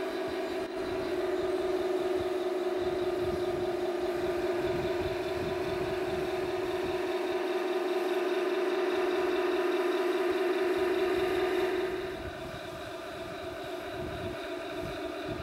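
Tamiya 1/16-scale radio-controlled Tiger I tank driving, its drive giving a steady mechanical whine. About twelve seconds in the whine drops and becomes quieter.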